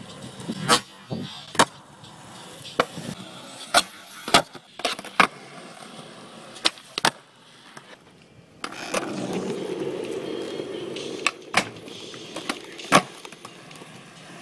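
Skateboard on asphalt: about a dozen sharp clacks of the tail popping and the deck and wheels slapping down, spread irregularly, as 360 flips are tried. A steady low rumble runs for a few seconds about two-thirds of the way through.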